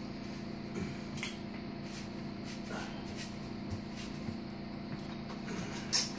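Sheet-metal cover of a satellite receiver being handled and lifted off its chassis: a few light clicks, a sharp click about a second in, and a louder clack near the end, over a steady low hum.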